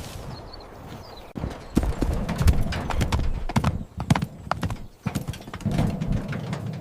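Hooves clopping: a run of irregular sharp knocks starting about a second and a half in.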